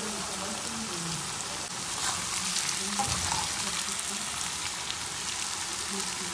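Thin potato slices frying in hot oil in a pan: a dense, steady sizzle with fine crackles, as a spatula stirs them through the oil.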